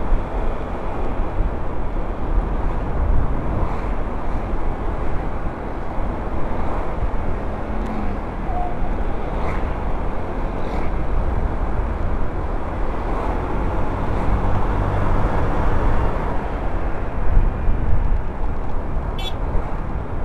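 Steady wind rushing over the microphone and road noise from a Honda Vario 125 scooter riding at a constant pace, its engine running underneath.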